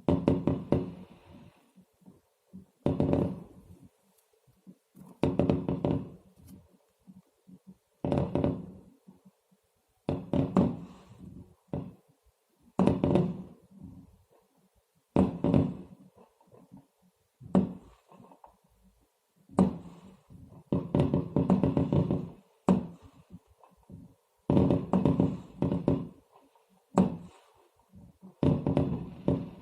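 Fireworks exploding: a string of sharp bangs about every two seconds, each followed by a short rumbling echo, with several coming in quick succession around the middle and near the end.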